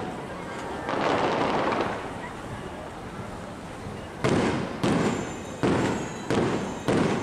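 Aerial fireworks going off. A crackling rush comes about a second in, then five sharp bangs in quick succession from about four seconds in, each trailing off.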